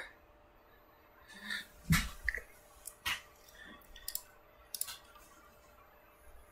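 A scatter of faint clicks and soft handling noises, the sharpest clicks about two and three seconds in, from hands working a small device and cable.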